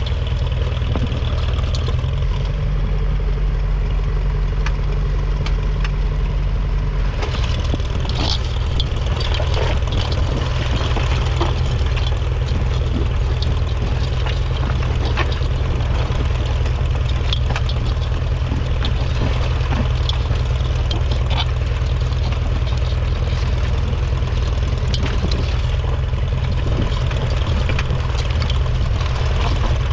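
1953 Ferguson TED20 tractor's 2.1-litre four-cylinder petrol/TVO engine running steadily, its note changing slightly about seven seconds in.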